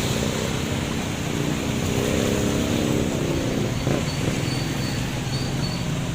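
A motor vehicle's engine running steadily under a constant rushing hiss.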